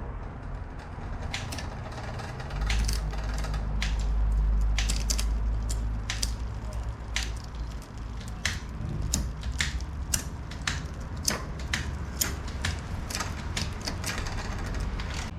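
Sharp mechanical clicks at an uneven pace, two or three a second, from a bicycle being worked on, with a low rumble from about two seconds in to about six seconds in.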